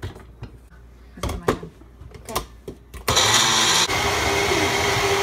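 Magic Bullet blender: a few clicks and knocks as the cup is set onto the base, then about three seconds in the motor starts and runs loud with a steady whine, blending frozen fruit, yogurt and orange juice.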